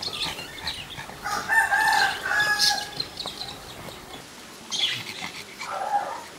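A rooster crowing: one drawn-out crow of about a second and a half, starting a little over a second in. A shorter call follows near the end.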